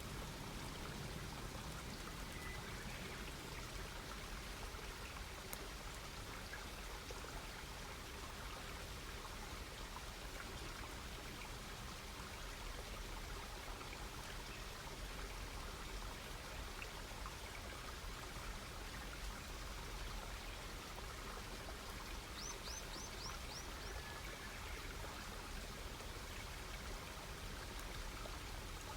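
Wood campfire crackling: a steady hiss with small scattered pops. About 22 seconds in, a bird gives a quick run of about five high chirps.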